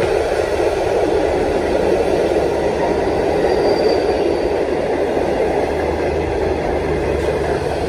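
The Indian Pacific's stainless-steel passenger carriages running past close by without stopping, making a loud, steady rumble and rush of wheels on the rails.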